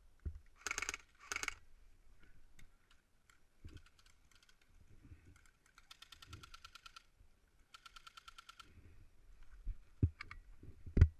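Airsoft guns firing: two rapid bursts of fast, even clicks of about a second each in the middle, with scattered single clicks around them. Two short bursts of rustling come about a second in, and a few sharp knocks near the end are the loudest sounds.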